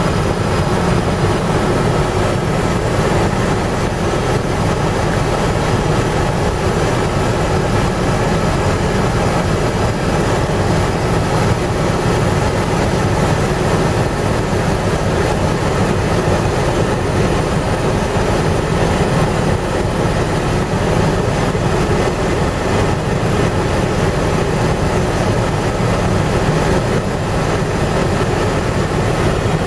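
Helicopter in flight, heard from inside the cabin: the rotor and engine make a loud, steady noise with a strong low rumble.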